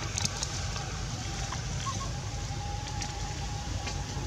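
Steady outdoor background noise: a low rumble with a hiss over it, a few faint clicks, and a faint thin hum coming in about halfway through.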